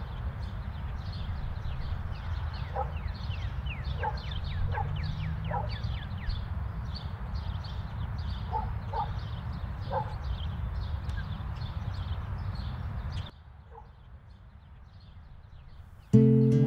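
Outdoor ambience of birds chirping in quick falling notes and a dog barking now and then, over a low steady rumble. About thirteen seconds in it cuts to quiet room tone, and acoustic guitar strumming starts near the end.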